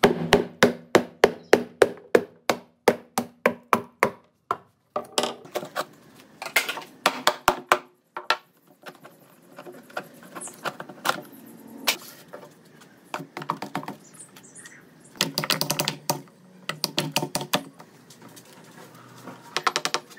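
A series of sharp taps with a short ringing after each one. They come evenly at about three a second for the first four seconds, then in quicker clusters with pauses between them.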